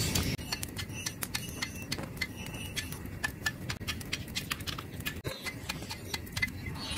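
Hammer striking red-hot bearing steel on an anvil as it is forged into a knife blank: short, sharp blows, several a second, with a faint metallic ring.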